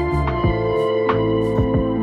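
Background music: a gentle instrumental track with sustained notes, plucked or keyed tones and a steady beat about twice a second.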